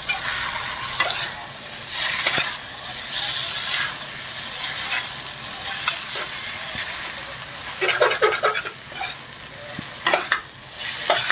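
Chicken chow mein stir-frying over a high flame: a steady sizzle, with a spatula scraping and clinking against the pan every second or two and a quicker run of clinks near the end.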